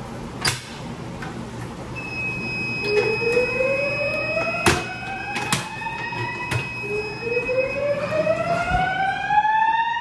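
Fire alarm voice-evacuation speakers sounding the slow whoop tone: two rising sweeps, each about four seconds long, that come just before the recorded evacuation message. A sharp click comes about half a second in as the manual pull station is pulled, and a steady high beep starts about two seconds in.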